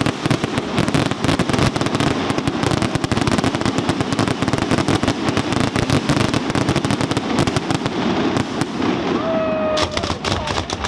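Fireworks display: a dense, continuous barrage of rapid bangs and crackling. Near the end comes a short whistle, then a few sharp cracks.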